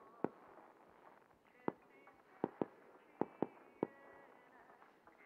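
Aerial fireworks shells bursting: about seven sharp bangs at irregular spacing, some in quick pairs.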